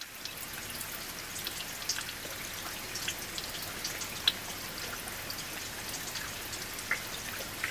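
Steady rain hiss with scattered drop ticks.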